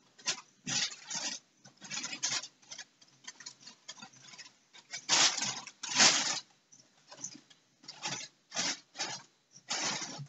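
The crinkly cover of a cat play mat rustling and crackling in irregular bursts as cats paw and swipe at the toy beneath it, loudest about five to six seconds in.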